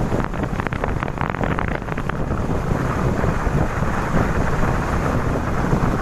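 Wind buffeting a phone's microphone on a moving motorcycle: a loud, steady rumble of rushing air, with crackling gusts in the first two seconds.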